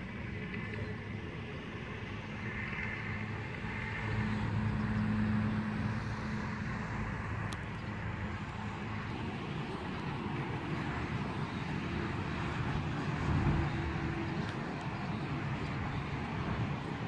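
Steady engine hum and road noise of a car driving, heard from inside the car, swelling a little a few seconds in and again near the end.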